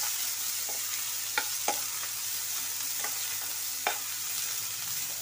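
Sliced onions, garlic and soya chunks sizzling in hot oil in a kadai, the onions frying toward light brown. A spatula stirs them and knocks against the pan four times.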